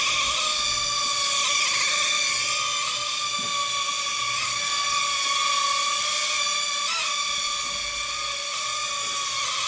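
Small propeller motors of a UFO Interactive Aircraft flying toy whining steadily in flight, a high pitch that wavers slightly, with brief wobbles near the start and about seven seconds in.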